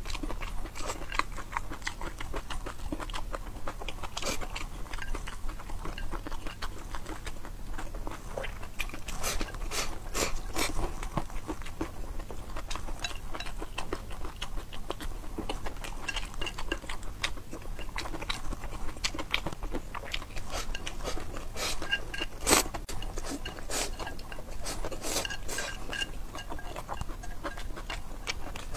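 Close-up eating sounds: stir-fried instant noodles slurped and chewed, with wooden chopsticks clicking and scraping against the stone bowl. One sharper, louder click about three-quarters of the way through.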